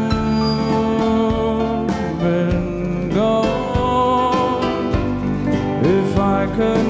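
Country band playing live: a male lead vocal sings long held notes over acoustic guitar, bass and drums. The voice slides up into a new note about three seconds in and again near the end.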